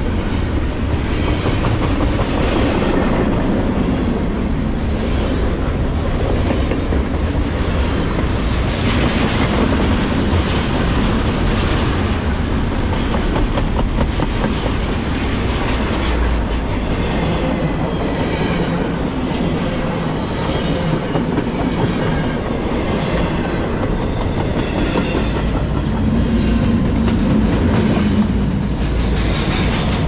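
Double-stack container freight train rolling past at close range: a steady rumble of steel wheels on rail with continuous clickety-clack over the rail joints. A couple of short, high wheel squeals come partway through.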